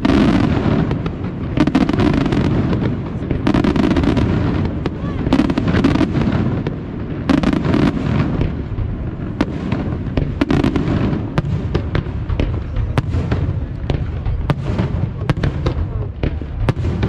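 Aerial fireworks display: a dense, unbroken barrage of shell bursts and crackling, with sharp bangs coming several times a second.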